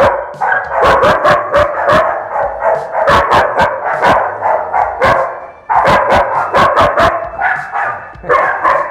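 Dog barking rapidly and repeatedly, about three barks a second, with a brief gap about five and a half seconds in: agitated barking at the handler standing at its kennel gate.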